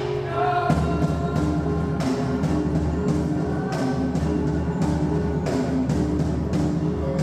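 Background music with a steady beat that comes in fuller about a second in.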